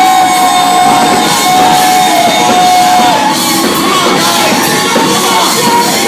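Loud live music with a long held high note that ends about three seconds in, over shouting from a crowd.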